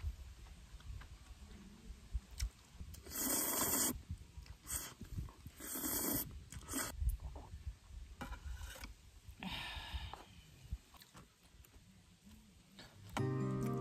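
Noodles being slurped in several short bursts, with chewing in between. Acoustic guitar music comes in near the end.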